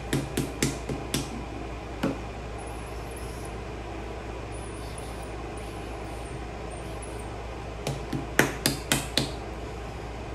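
Sharp knocks in quick runs, about four a second: five or so in the first second, a single one near two seconds, and another run of about six around eight to nine seconds in. A steady low hum runs under them.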